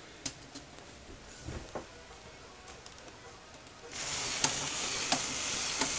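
Plastic clicks and knocks of a Lego Technic robot being handled and set down, then about four seconds in its motor and gears start running with a steady whirring hiss and a sharp click about every two-thirds of a second from the leg mechanism.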